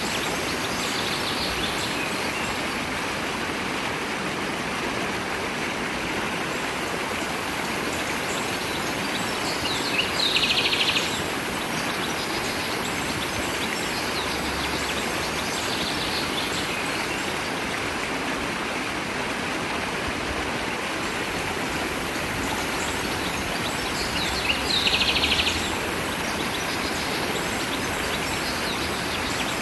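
Steady rush of a flowing stream with birds chirping over it; a louder, rapid trilling call comes about ten seconds in and again near twenty-five seconds, with fainter chirps in between.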